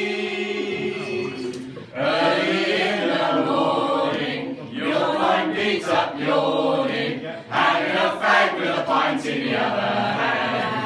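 Several voices singing a comic song together, held notes in phrases with short breaks between them.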